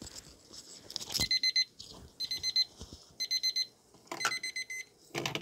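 Electronic alarm beeping: four groups of rapid, high beeps, about one group a second. A short rustle or clatter comes near the end.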